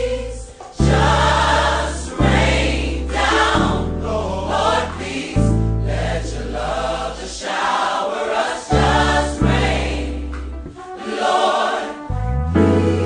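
Gospel choir singing in short phrases over an instrumental backing with a deep bass line.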